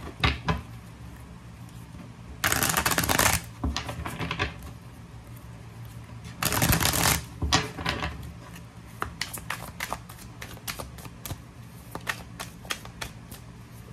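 A deck of oracle cards shuffled by hand, overhand, with quick card flicks and taps throughout. Two longer bursts of rustling come about two and a half and six and a half seconds in.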